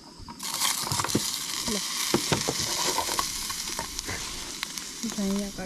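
Sausages sizzling in a hot frying pan, the sizzle starting suddenly about half a second in, with several sharp clicks of a utensil against the pan.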